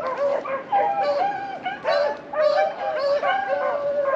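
A pack of beagles baying in overlapping yelps and howls, the sound of hounds running a rabbit's trail.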